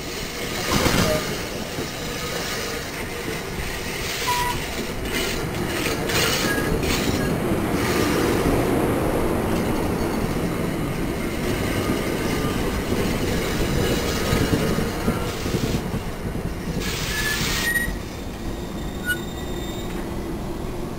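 NJ Transit Comet passenger coaches rolling past close by as the train pulls into the station, steel wheels on rail with a few short high wheel squeals. The rolling is loudest in the middle and eases off near the end as the train slows.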